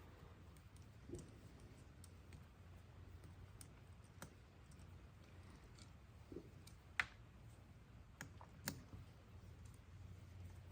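Faint, scattered clicks of a hand tool on the chainring bolts of a mid-drive e-bike motor as the bolts are loosened one by one, the sharpest about seven seconds in, over near silence.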